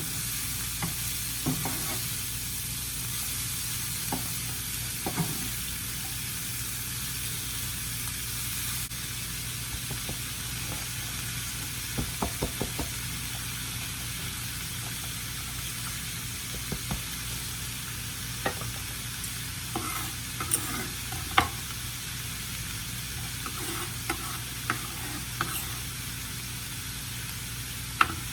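Food sizzling steadily in hot oil in a frying pan while being stirred, with scattered clicks and scrapes of the utensil against the pan and a steady low hum underneath.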